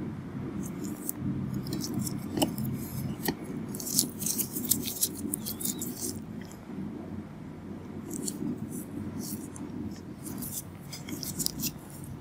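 Clusters of short, crisp clicks and scrapes from gloved hands and a metal comedone extractor handled close to the microphone, densest about four to six seconds in, over a steady low murmur.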